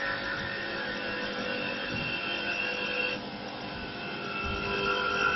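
Mini CNC wood-turning lathe running with a steady motor whine that changes pitch about three seconds in.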